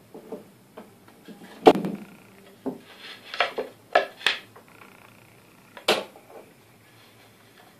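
A wooden cabinet panel being handled and set onto a speaker box: a series of sharp knocks and scrapes of wood on wood, the loudest about two seconds in, with more around four seconds and one near six seconds.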